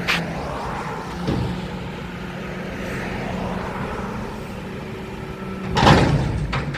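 Mack McNeilus front-loader garbage truck running steadily, with a knock about a second in and a loud metallic bang near the end.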